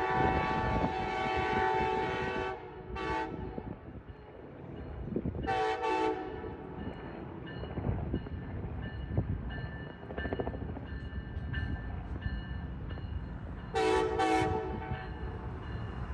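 Siemens SC-44 Charger diesel locomotive sounding its horn: one long blast at the start, a short blast about three seconds in, a quick pair about six seconds in, and another quick pair near the end. The rumble of the train running toward the listener carries on between the blasts.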